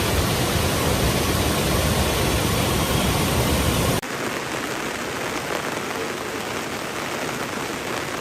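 Steady rain, a dense, even hiss. It drops abruptly to a softer rain about halfway through.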